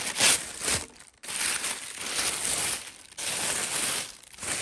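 Thin tissue paper crinkling and rustling as hands pull it open inside a box, in several bursts with short pauses.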